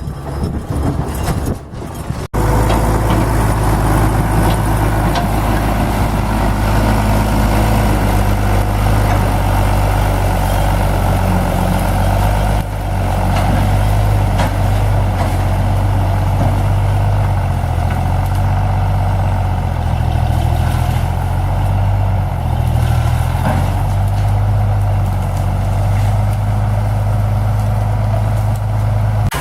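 International tractor's engine running steadily, a deep, even drone. It cuts in abruptly about two seconds in, after a short stretch of wind noise on the microphone.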